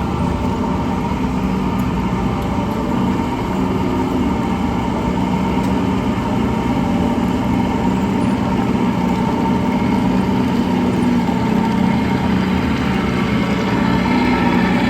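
A vehicle engine idling steadily, with an even low hum that holds a constant pitch.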